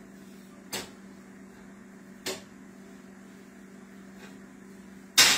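Kitchen handling noises over a steady low hum: two light knocks, then a loud sharp clack near the end.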